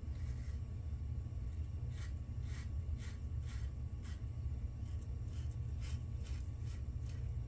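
Razor blade scraping through lathered stubble in a series of short strokes, about one or two a second, over a steady low hum.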